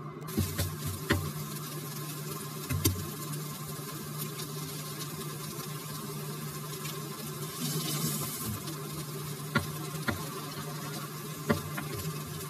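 Diced meat, onion and carrot sizzling in a frying pan with an egg frying in the middle, with a few sharp knocks of a spatula against the pan over a steady low hum.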